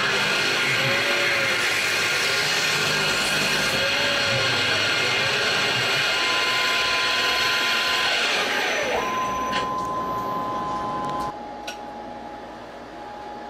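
PM-727M CNC mill cutting aluminium: a loud, steady whine and hiss, with a tone that wavers up and down about every second and a half. About nine seconds in the cutting stops, leaving quieter steady machine tones, and the level drops again shortly after.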